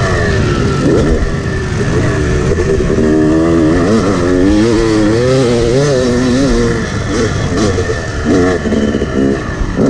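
Yamaha 250 two-stroke dirt bike engine revving hard as the bike is ridden around a motocross track, its pitch climbing and dropping with throttle and gear changes. Near the end the rider comes off the throttle, then blips it in a few short bursts.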